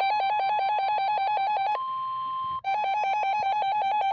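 Weather alert radio alarm: a loud, buzzy electronic tone alternating between two pitches about eight times a second. Near the middle it gives way for under a second to a single steady tone just above 1 kHz, typical of the weather radio warning tone, then the alternating alarm resumes. It heralds a severe thunderstorm warning.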